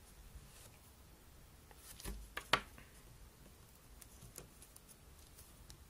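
A few small clicks and taps from hands working on an opened iPhone 4's frame and parts. There is a cluster about two seconds in, with one sharp click the loudest.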